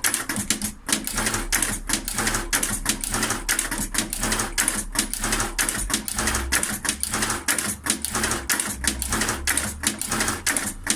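A machine running with a fast, slightly uneven clatter of mechanical clicks, about four to five a second, over a faint low hum.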